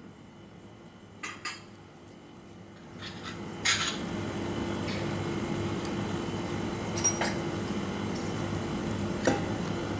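A kitchen knife clicking and clinking against a plastic cutting board in a few sharp, separate strikes, the loudest a little before the middle. From about then a steady rushing noise with a low hum runs underneath.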